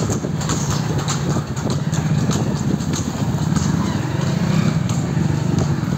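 A motorcycle engine running steadily at low speed, with scattered light clicks and knocks over it.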